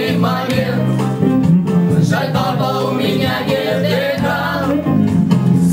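A song: a voice singing over instrumental accompaniment with held low notes.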